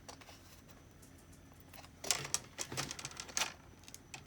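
Quiet at first, then about two seconds in a run of light clicks, taps and rustles from hands working the plastic screen assembly of an HP Stream 14 laptop as the panel and its tape are lifted.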